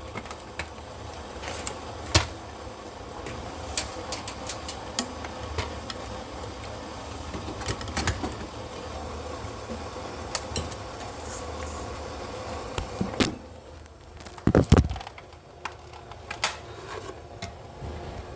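Scattered clicks and knocks of things being handled, over a steady low hum, with a louder pair of knocks about three-quarters of the way through.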